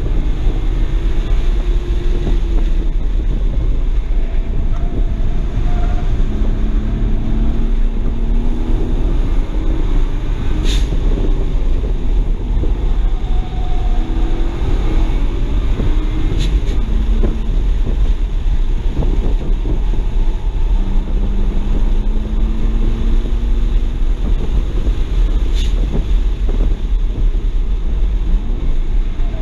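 BMW 335i's twin-turbo N54 straight-six heard from inside the cabin on track, revs climbing under acceleration and dropping back several times, over a heavy steady rumble of road and wind noise. Three brief sharp sounds cut through it.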